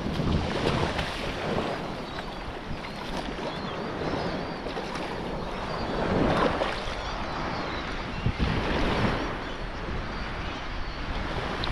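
Shallow surf washing and sloshing around a wading angler's legs, with wind buffeting the microphone. A hooked fish thrashes and splashes at the surface at the start, then the water sound runs on in uneven swells while the fish is held.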